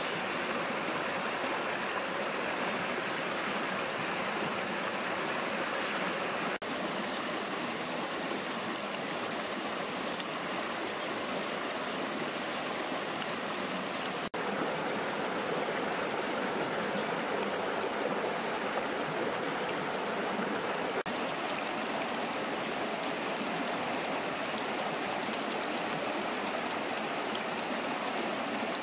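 Shallow rocky stream running over stones, a steady rushing of water with three momentary breaks.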